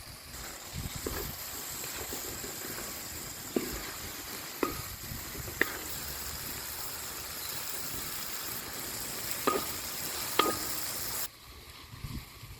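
Food sizzling and frying in a pan over a wood fire while it is stirred, with several sharp taps of a utensil against the pan. The sizzling cuts off suddenly near the end.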